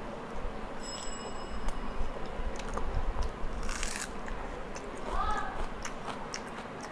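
A person chewing a mouthful of rumali roti dipped in mutton gravy close to the microphone, with small wet clicks and smacks of the mouth. A brief crunchy rustle comes near the middle.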